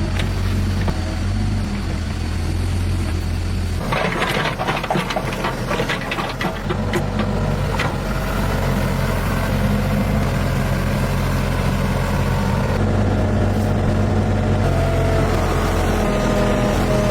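A vehicle engine running steadily, with a cluster of sharp metallic knocks or clanks from about four to seven seconds in, after which the engine settles back to an even run.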